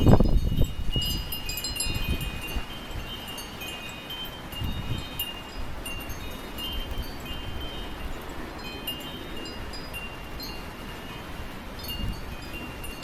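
Wind chimes ringing continuously as strong gusts of wind swing them, with wind rumbling on the microphone, loudest at the very start and swelling again about halfway and near the end.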